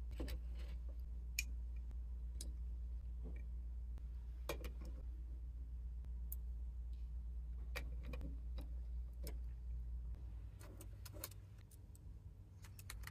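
Light, irregular clicks and taps of a 1:50 scale diecast model truck's small parts being handled and fitted into place, a cluster of them near the end, over a steady low hum.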